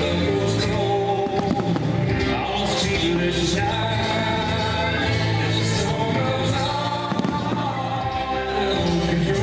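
Pyromusical soundtrack of rock-pop music with singing, with a few sharp cracks of bursting fireworks.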